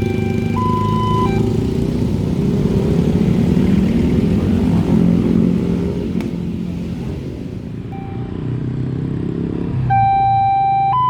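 A railway level-crossing warning alarm alternating between two tones, hi-lo like an ambulance siren. A loud low rumble, most likely a train passing over the crossing, drowns it out for most of the stretch, and the alarm rings out clearly again near the end.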